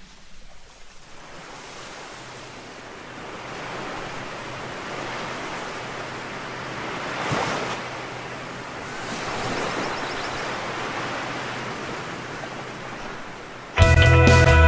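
Ocean surf washing onto a beach, a steady rush that swells as waves break, once about halfway through and again a little later. Near the end, loud music cuts in suddenly.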